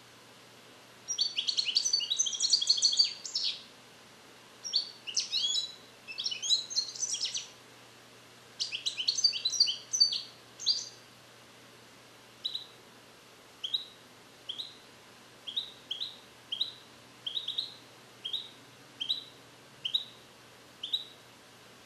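European goldfinch singing: four bursts of rapid, high twittering phrases in the first half, then a string of single short chirps about one a second. He is a young song-trained bird practising Neapolitan-style phrases (passate napoletane) that are not yet complete.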